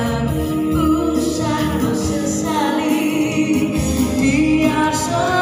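A woman singing a song into a microphone over a backing track, amplified through a PA system; her voice holds and slides between long notes over a steady bass accompaniment.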